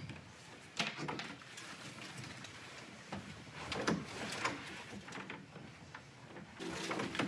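A few scattered knocks and thuds of someone moving about a room, with a steady low hum starting near the end.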